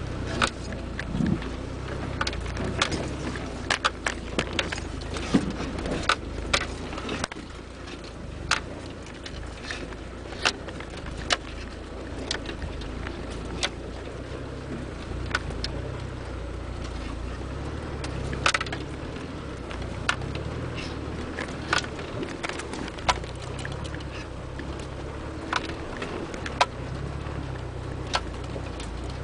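Land Rover Discovery's four-cylinder turbodiesel heard from inside the cab, running low and steady while crawling over a rutted track. Many irregular sharp knocks and rattles come from the body and loose gear as the vehicle lurches over the ruts.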